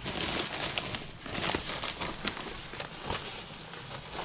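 Pine shavings being poured by hand from a plastic bag into a plastic barrel dog house: the bag rustling and the shavings pattering in, an uneven rustle with many small crackles.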